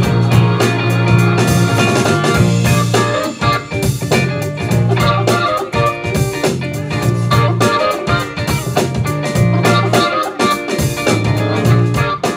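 Live funk band playing instrumentally: electric guitar, electric bass, keyboards and drum kit, with a deep bass line in long held notes under the drums.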